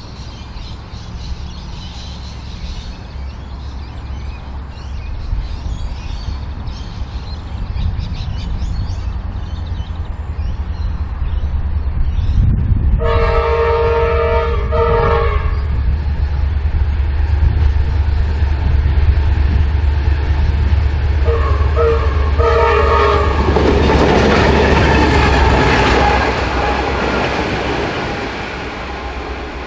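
Diesel locomotives running light engine, led by T class T363, approach with a steady low engine drone. The multi-note horn sounds twice about halfway through and twice more, shorter, a little later. A loud rush of engine and wheel noise follows as the locomotives come close.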